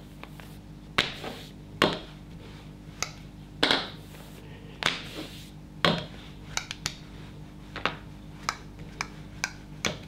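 Rolling pin knocking and tapping on a work table as a thin sheet of pastillage is rolled out in short pushes and lifted, with sharp taps about once a second and a few brief brushing sounds of the paste being rolled and moved.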